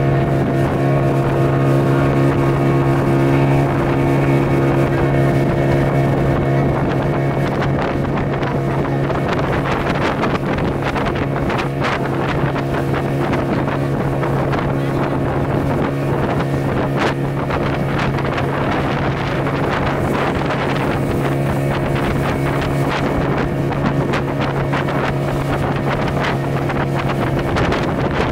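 Speedboat engine running at a steady pitch at cruising speed, with water rushing and spraying off the hull and wind buffeting the microphone.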